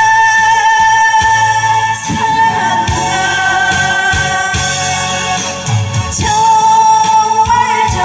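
Woman singing a Korean trot song live into a handheld microphone over instrumental accompaniment, holding long notes over a pulsing bass line.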